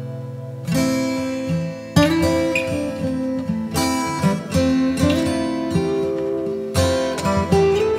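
Background music led by an acoustic guitar, plucked notes and chords struck every half second or so.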